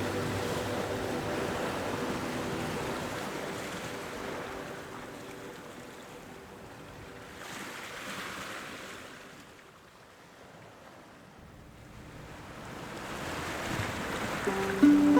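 Soft background music with sustained notes fades out, leaving a rushing, wave-like wash of noise. The noise swells, dies down about ten seconds in, and builds again as new music notes come in near the end.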